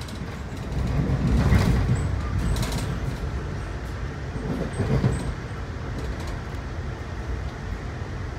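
Ride noise inside a moving Amtrak Downeaster passenger coach: a steady low rumble of wheels on rail, with two louder surges of clatter about a second and a half in and around five seconds in.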